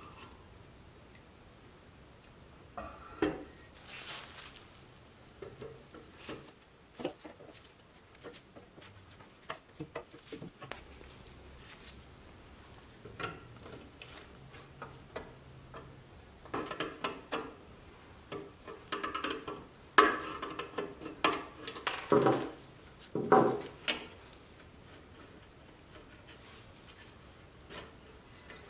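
Screwdriver and small steel parts of a pressed-steel toy tow truck's boom clinking and scraping as they are worked loose, with the hook chain rattling. Scattered clicks at first, then a busier run of clatter past the middle with a few sharper knocks.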